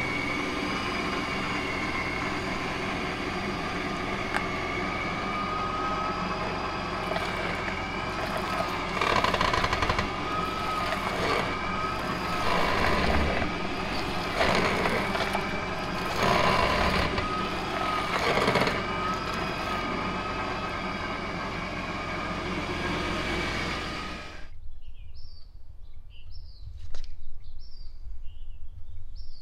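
A big off-road vehicle running as its large mud-terrain tyre rolls and turns on concrete. Sustained wavering squeals surge louder about every two seconds as the tyre scrubs around. About 24 seconds in, the sound cuts off abruptly to a quiet outdoor background with small repeated bird chirps.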